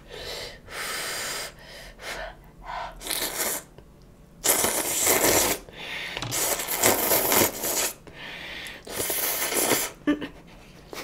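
Several noisy bursts of slurping and snorting, each up to about a second long, from a person eating saucy spaghetti noodles; the sauce gets into her nose.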